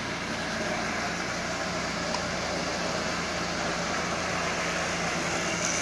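Lionel 8040 toy steam locomotive running around the track: a steady whir of its electric motor and wheels on the metal rails, growing slightly louder after the power has been turned up.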